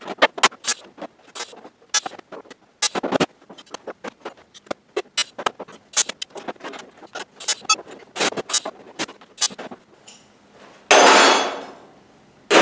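Metal hand tools and locking clamps clinking and knocking against the thin aluminum sheet of a welded kayak hull, a rapid irregular run of sharp clicks. Near the end come two loud metallic crashes, each ringing out for about a second.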